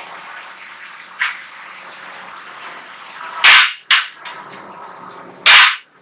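Two loud, sharp hammer blows about two seconds apart, the first followed closely by a lighter knock, over a faint steady background.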